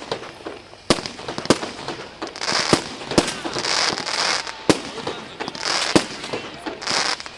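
Fireworks display: sharp bangs of shells bursting overhead, about seven spread through the few seconds, with stretches of dense crackling hiss in between from glittering star effects.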